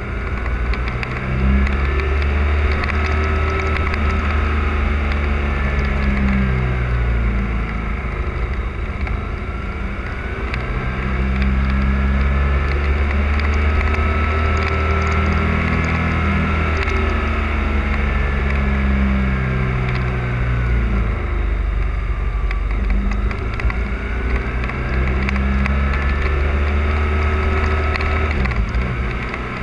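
Motorcycle engine under way through a series of bends, its pitch climbing as the throttle opens and dropping as it eases off, with several short dips where the rider shifts or rolls off for the next corner.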